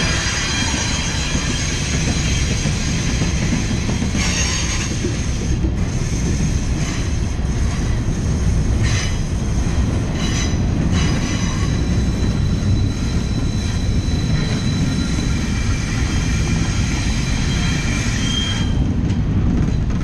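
Double-stack intermodal well cars rolling past close by: a steady heavy rumble of steel wheels on rail, with high squealing from wheel-to-rail friction that rises and fades.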